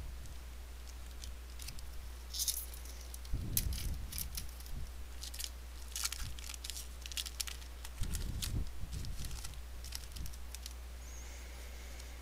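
A baseball card pack's wrapper being torn open and crinkled in the hands, then the cards handled. It is a run of irregular crisp crackles and rustles, with two soft thumps.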